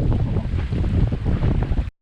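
Wind buffeting the microphone of a GoPro on a Flying Scot sailing dinghy's tiller, with water rushing along the hull; the rumble cuts off abruptly near the end.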